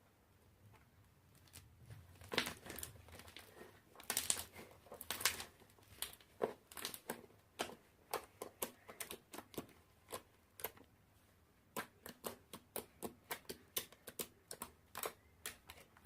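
Fluffy slime made with shaving foam being squeezed and kneaded by hand, giving a run of small sharp crackles and pops, a few a second, as the air pockets in it are pressed out.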